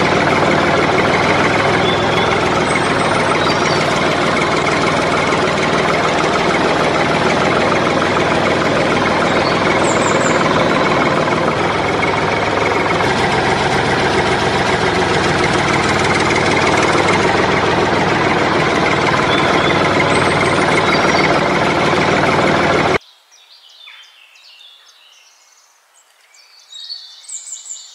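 Tractor engine running steadily, cutting off suddenly near the end.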